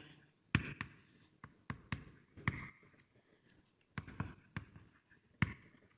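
Writing on a board: a series of short taps and scratchy strokes, about ten in all, with quiet gaps between them.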